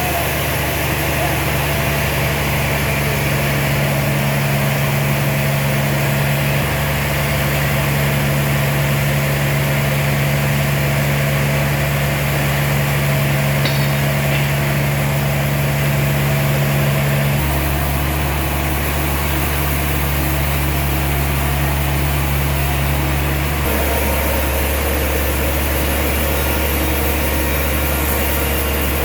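Sawmill machinery running with a steady, loud drone. Its tone changes abruptly about 17 seconds in and again about 24 seconds in.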